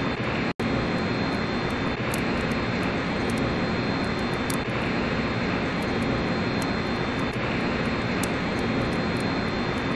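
A steady, loud rushing roar of noise with no clear pitch, the kind made by strong wind on a microphone or a ship's engine room drone. It drops out for an instant about half a second in.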